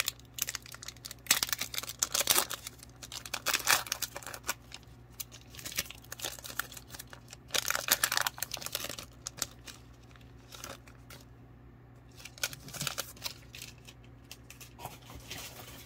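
Foil wrapper of a Donruss Optic football card pack being torn open and crinkled in repeated bursts of rustling. After about ten seconds it goes quieter, leaving a few soft clicks as the cards are slid out and handled.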